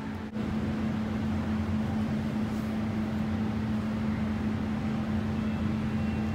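Steady mechanical hum of building ventilation, with one held low tone over a rumble.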